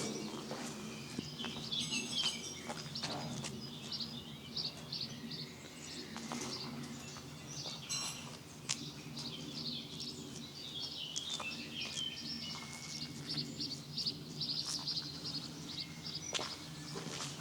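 Several small songbirds chirping and singing, with many short, high notes and trills throughout, over a steady low background rumble.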